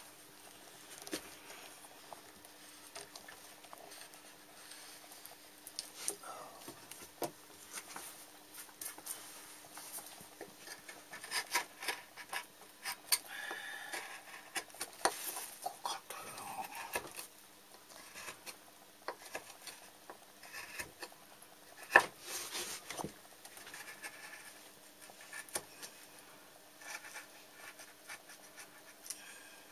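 Hand woodcarving with chisels and gouges: irregular scraping and rustling of blades cutting and shavings moving, with scattered light clicks and taps of steel tools handled on the wooden bench. One sharp, louder knock about 22 seconds in.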